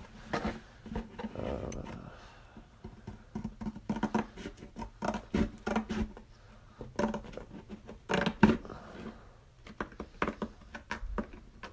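Scissors cutting through a cardboard shoebox: a run of irregular snips and crunches with gaps between them.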